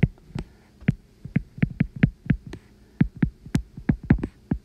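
Stylus tip clicking against a tablet's glass screen while handwriting words: an irregular run of sharp taps, several per second.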